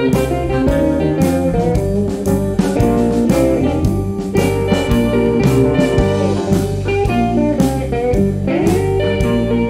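Blues band playing live, with electric guitars, bass guitar, drums and keyboard under an amplified harmonica played into a cupped microphone. The harmonica holds long notes that bend in pitch, most clearly near the end.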